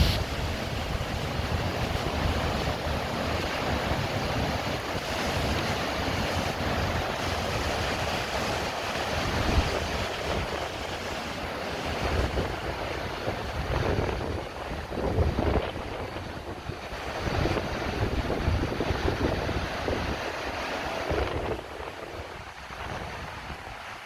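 Steady rush of falling water from the Goryu Falls waterfall, with wind buffeting the microphone in gusts. It gets quieter near the end.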